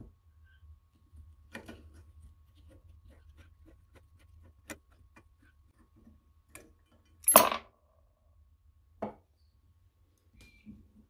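Flat-blade screwdriver working a slotted screw on a 1940s Peter Pan Model 1 sewing machine: faint scrapes and ticks of metal on metal. A loud metallic clink comes about seven seconds in, and a smaller one about two seconds later.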